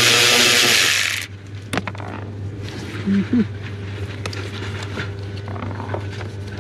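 A power tool whirring as it spins out a blower-motor mounting bolt, its motor rising in pitch before it stops about a second in. Then a few light clicks and scrapes of the socket and bolt.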